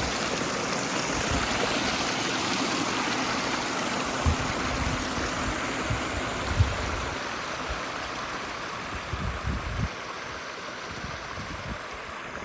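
Water cascading steadily down a pondless waterfall's rock stream, growing a little quieter near the end, with a few short low thumps.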